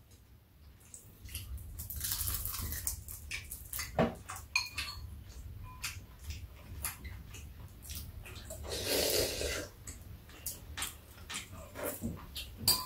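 Chopsticks and a spoon clicking and scraping against ceramic bowls in scattered small clicks, with two longer hissing sounds, about two seconds in and about nine seconds in.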